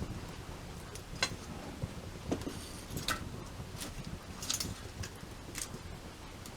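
Wood campfire crackling: sharp pops and snaps at irregular intervals, roughly one a second, over a low steady rumble.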